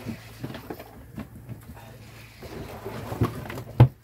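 Boat engine running steadily, with scattered knocks and clatter and one sharp, loud knock near the end.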